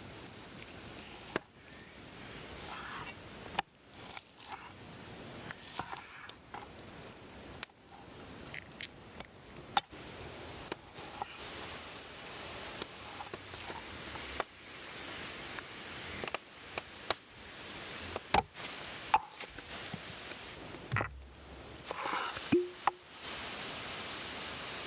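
Food preparation by hand: irregular knocks, taps and scrapes of a knife and utensils on a cutting surface, with a short squeak near the end, after which a steady hiss begins.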